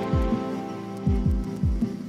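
Background music: held chords over a deep kick drum that drops in pitch on each beat, the beats often coming in pairs.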